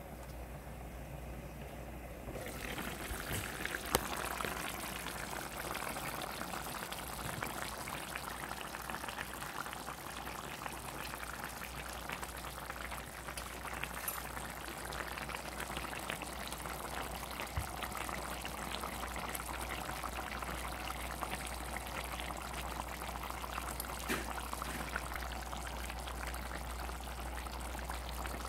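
Pork pieces boiling in broth in a pan, a steady bubbling and crackling of the liquid that starts about two seconds in, with a single click about four seconds in and a steady low hum underneath.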